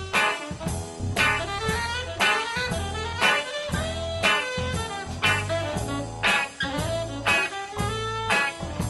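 Live band playing an instrumental break in a blues tune: saxophones play over a steady drum-kit beat.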